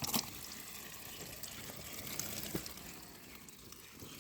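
Water running and trickling, with a light knock about two and a half seconds in.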